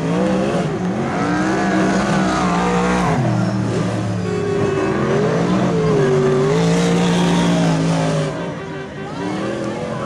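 Speedway stock car engines racing on a dirt oval, revving up and down so that their pitch rises and falls repeatedly.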